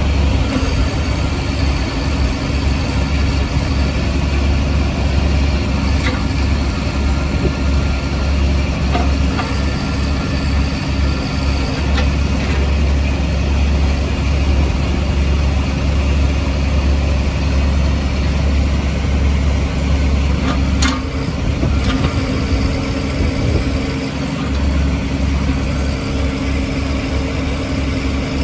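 Kubota B26 tractor's 26 hp diesel engine idling steadily, with a few light clicks over the hum.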